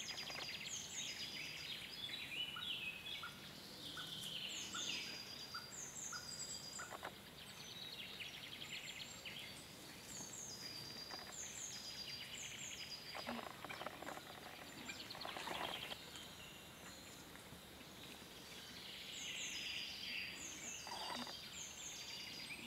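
Woodland songbirds singing, with high phrases of quick falling notes repeated every few seconds. A few seconds in, a series of short, evenly spaced lower notes runs at about two per second. A few brief scuffing noises come in the middle and near the end.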